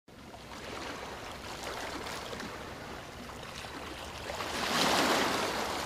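Ocean surf washing onto the shore, a steady hiss that swells as a wave breaks about five seconds in, then eases.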